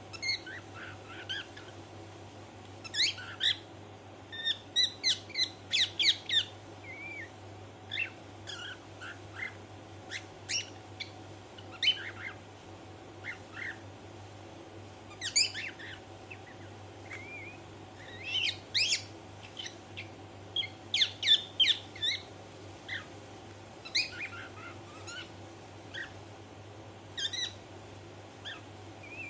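Pet cockatiel giving bursts of short, sharp chirps and squawks in clusters, with quiet gaps between them: mimicked parrot sounds.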